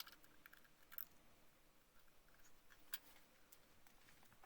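Near silence: room tone with a few faint, brief clicks.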